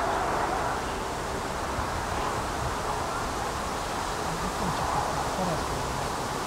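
Steady rustling hiss of wind, even throughout with no distinct knocks or clicks.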